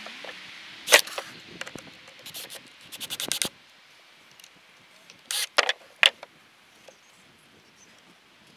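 Irregular scratching and scraping with sharp clicks, in short clusters about a second in, around three seconds in, and between five and six seconds in.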